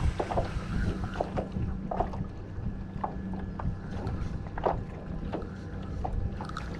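Water slapping and small knocks against a kayak hull in the wind, with many short irregular clicks and splashes over a low steady hum.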